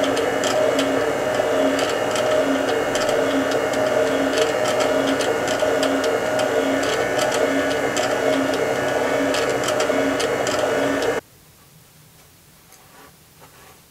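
Rawmid planetary stand mixer running its fettuccine cutter attachment, a steady motor whir with a slight regular pulse as a sheet of pasta dough is cut into ribbons. It stops abruptly about eleven seconds in, leaving only faint handling sounds.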